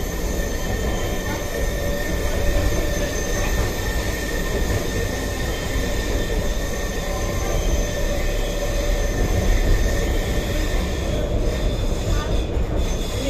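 Tram running, heard from inside the passenger car: a steady low rumble with a thin, steady high whine over it.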